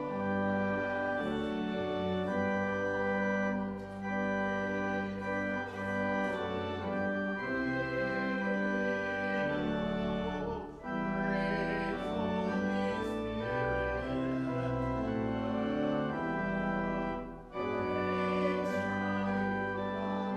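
Organ playing a slow instrumental piece in sustained chords, the offertory music of a church service.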